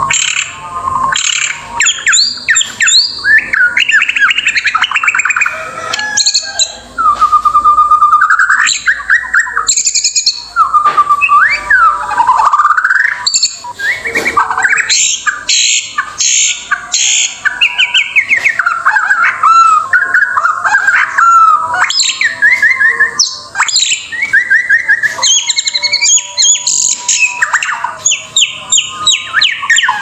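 White-rumped shama (murai batu) singing continuously: a varied run of loud whistled phrases, rapid trills and sharp chips, with hardly a pause.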